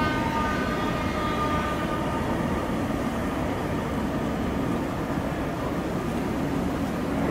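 Tobu 634-type Skytree Train electric railcar running away along the track: a steady low rumble, with a whine over the first two seconds or so that then fades.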